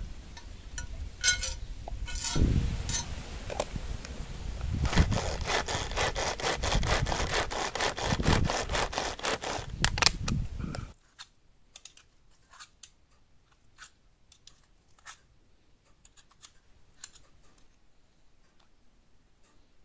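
Rapid rhythmic scraping strokes, like sawing or rasping, for about ten seconds, then stopping abruptly; afterwards only faint scattered clicks.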